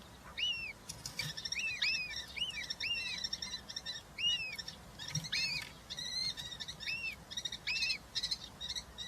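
Birds calling: a string of short arched chirps, one or two a second at an uneven pace, with scratchy rasping notes in between.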